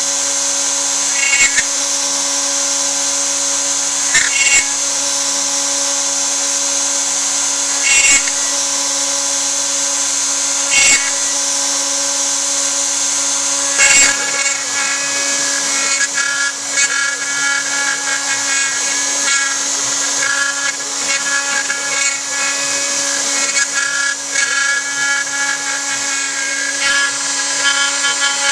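Joe's 4x4 CNC router running a carving job. The router spindle whines steadily while the bit cuts into pine. There are short, louder bursts about every three seconds in the first half, then from about halfway on the sound turns busier and more uneven as the cut goes on.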